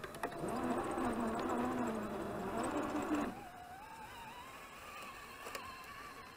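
Electric motor and gear drive of a scale RC crawler whining as the car drives forward over snow, the pitch wavering with the throttle; it stops about three seconds in. A fainter, higher, steady whine continues after it, rising slightly in pitch.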